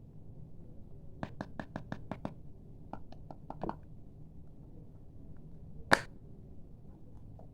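A quick run of small sharp clicks, about seven in a second, then a few scattered ones, and one louder sharp snap about six seconds in: hands handling a slime pack.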